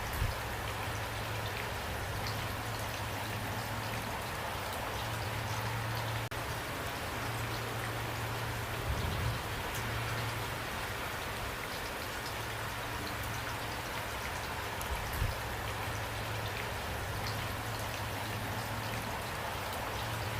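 Steady rainfall, an even hiss of falling drops over a low rumble, with a few brief low thumps, about halfway through and again near three quarters.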